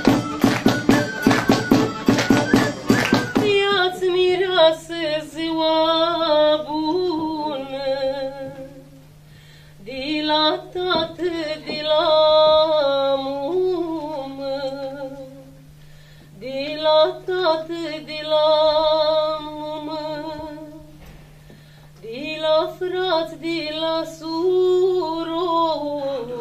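Fast rhythmic instrumental music with a strong beat stops abruptly about three and a half seconds in. A solo voice then sings a slow, drawn-out folk song in four long phrases with sliding, ornamented pitch, separated by short pauses, over a steady low hum.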